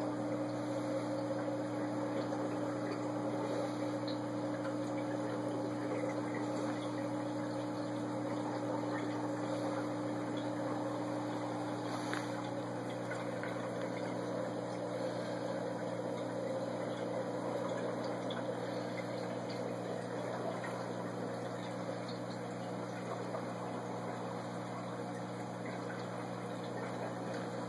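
Aquarium pump running: a steady hum with a few fixed tones over even water noise.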